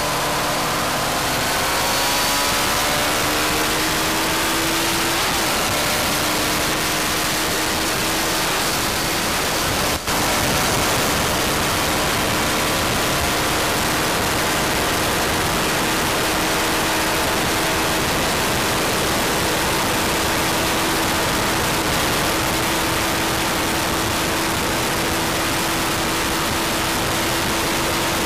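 Sport motorcycle engine running hard at high revs, its pitch climbing slowly as the bike accelerates near top speed, under a loud, steady rush of wind noise. The sound dips briefly about ten seconds in.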